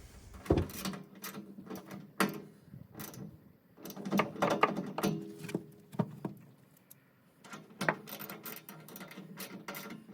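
Hand socket wrench tightening the panel's mounting bolts: irregular clicks and knocks of the tool working against the metal panel, with no power tool running.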